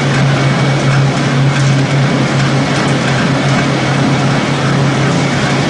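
Pellet making machine running: a loud, steady mechanical noise with a constant low hum.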